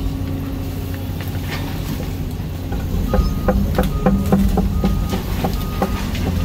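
Hyundai HX220AL excavator's diesel engine running steadily at work. From about three seconds in there is a run of rapid clicks and knocks, with a short high beep repeating about once a second.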